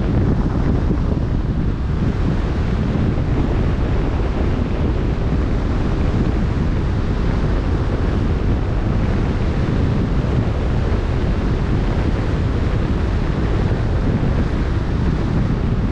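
Steady wind buffeting the microphone, a low rush, over the wash of choppy open sea.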